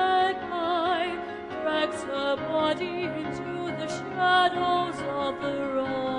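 Operatic singing with a wavering vibrato over sustained instrumental accompaniment, from a stage opera score, settling onto long held notes near the end.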